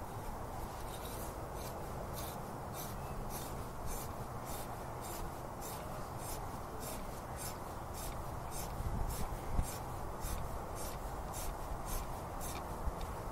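Thread tap in a T-handle tap wrench being turned by hand to chase the threads of a bolt hole in an outboard's lower unit. Metal rasps on metal in short, even scratchy strokes, about two or three a second.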